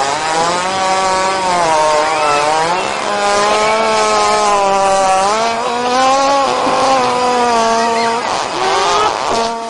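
One long fart, buzzy and raspy, lasting nearly ten seconds, its pitch wavering and stepping up and down before it cuts off near the end.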